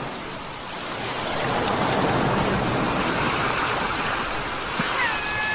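Sea waves washing in, a steady rush of surf that swells from about a second in. Near the end a seagull gives a short call.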